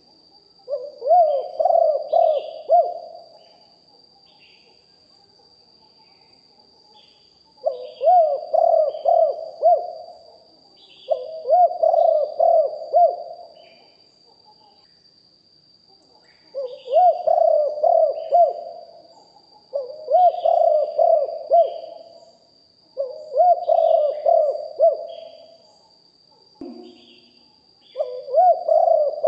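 Spotted dove cooing in repeated phrases, seven in all, each about two seconds of quick, pulsing coo notes with pauses between. Faint high chirps of small birds and a thin steady high whine run underneath.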